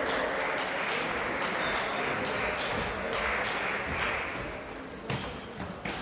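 Table tennis ball clicking back and forth off the bats and table, several sharp clicks a second, over background chatter in the hall.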